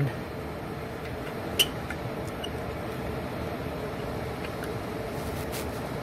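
American Standard Freedom 80 Comfort-R furnace blower fan running steadily, a steady whooshing hum, with a single light click about one and a half seconds in. The blower runs nonstop whenever the furnace has power, which the owner puts down to a bad control board.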